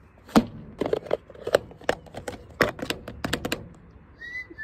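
Lid of a plastic food container being tapped and clicked, an irregular run of sharp plastic clicks. It is a feeding signal meant to lure a cat home.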